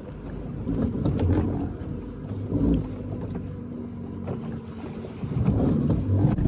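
Small fishing boat on rough water, with a steady low engine hum under water noise.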